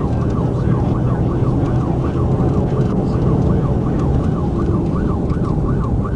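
Police car siren on its rapid yelp setting, rising and falling about two to three times a second, over the engine and road rumble of the patrol car in a pursuit.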